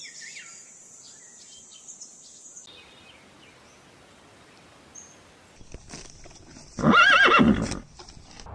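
A horse neighs once, about seven seconds in: one loud whinny lasting about a second, its pitch quavering. Before it there is only faint background.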